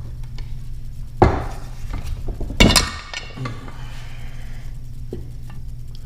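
Screwdriver prying the old brass-housed upper drive shaft seal out of a 1976 Evinrude 25 hp lower unit gearcase: metal-on-metal clinks and scrapes as the seal comes free. There are two loud clinks, about a second in and near the middle, the second ringing briefly, then a few lighter clicks.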